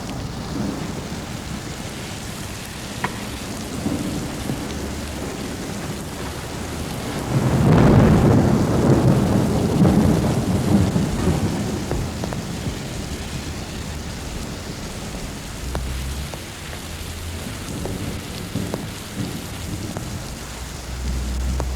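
Recorded thunderstorm effect: steady rain, with a long roll of thunder about seven seconds in that is the loudest part, and fainter rumbles later on.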